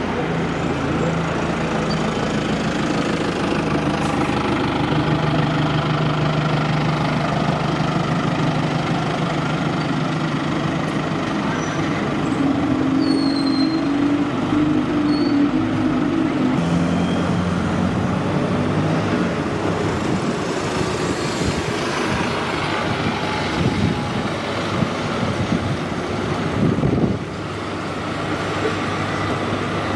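Diesel bus engines running at a bus station. An Alexander Dennis Enviro200 single-decker pulls away, its engine note rising as it moves off, while other buses idle. There is a brief burst of noise near the end.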